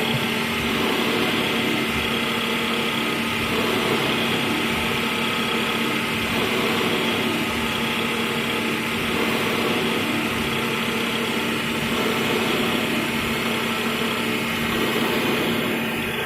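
CNC milling machine running steadily: a constant mechanical hum with a steady tone and a high whine over it, unchanging throughout.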